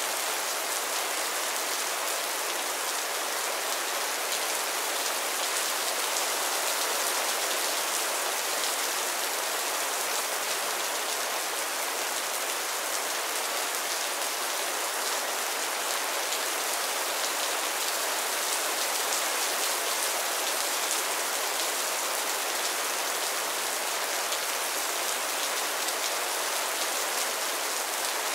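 Heavy rain falling steadily: a dense, even hiss of countless drops, mostly in the upper range.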